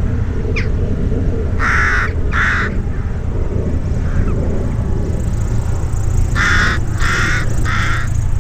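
Crow cawing: two harsh caws about two seconds in and three more near the end. Under them runs the low steady rumble of a Cessna F172M Skyhawk's engine idling as it taxis.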